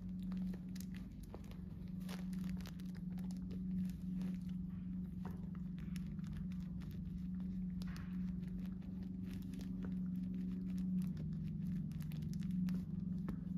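A dog chewing and tearing at something crinkly: many small crackles and crunches, over a steady low hum.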